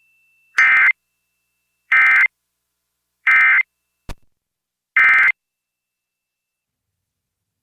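Emergency Alert System end-of-message data bursts: four short digital bursts about a second and a third apart, marking the end of the alert. A brief click falls between the third and fourth burst.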